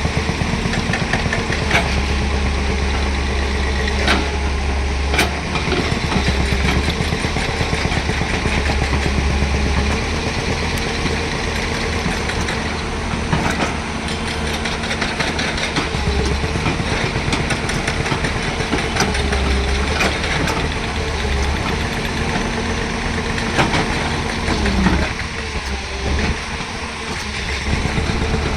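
Excavator's diesel engine running under changing load, its low drone swelling and easing several times, with occasional sharp knocks.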